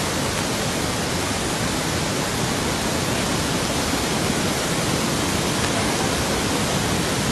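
Waterfall in flash flood, a swollen torrent of muddy water crashing down the rock face in a steady, unbroken rush.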